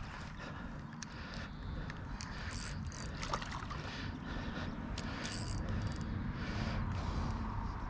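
Baitcasting reel being worked with scattered small clicks while a hooked pike swirls and splashes at the surface, over a steady low rumble.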